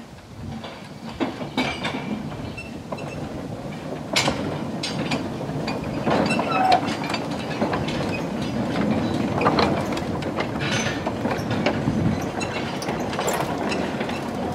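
Train of narrow-gauge wagons pushed by a Quarry Hunslet 0-4-0 steam tank engine rolling slowly past, wheels rumbling and clicking over the rail joints with irregular clanks from the wagons, growing louder as the train draws near.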